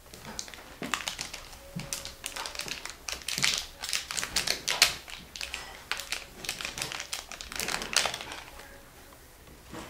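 Shiny plastic packaging pouch crinkling and rustling as it is handled and unwrapped, in quick irregular crackles.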